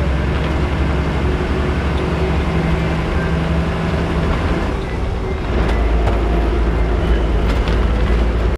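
Bus engine and road noise heard from inside the moving bus: a loud low rumble that eases briefly about five seconds in, then picks back up, with a few sharp clicks near the end.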